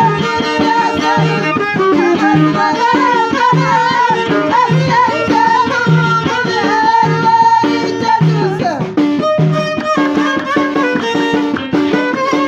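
Moroccan Middle Atlas folk music played live: a steady low hand-drum beat, about one stroke every three-quarters of a second, under a wavering melody line.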